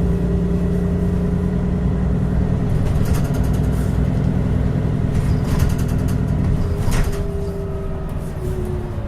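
VDL DB300 bus (Wright Pulsar 2 body) on the move, heard on board: engine and drivetrain running with a steady whine. Short bursts of rattling come at about three, five and seven seconds in.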